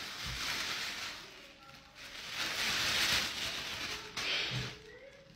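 Clear plastic bag crinkling and rustling in three bursts as men's boxer shorts are pulled out of it.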